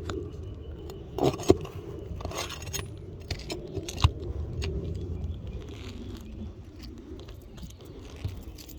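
Metal tool scraping and clinking against a roof shingle while working a roofing nail loose, with sharp knocks about one and a half and four seconds in.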